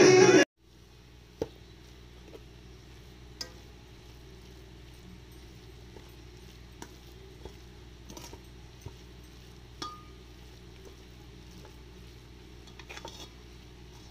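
Background music cuts off about half a second in. A metal spatula then taps and scrapes now and then against a cooking pan as freshly grated coconut is stirred for coconut laddoo, over a faint steady hum.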